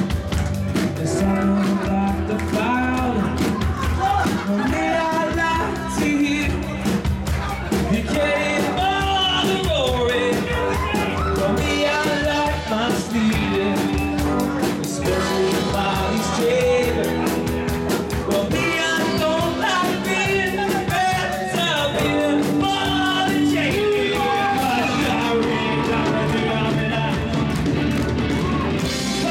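A band playing a song: a lead vocal over guitar chords with a steady beat.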